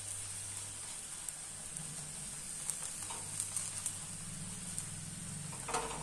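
Oil sizzling steadily on a hot iron tawa as a silicone brush spreads it over a cooking methi paratha, with a few light crackles along the way.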